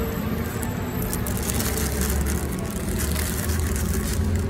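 Low rumble of a passing motor vehicle, swelling from about a second and a half in, with the paper sandwich wrapper crinkling under the hands.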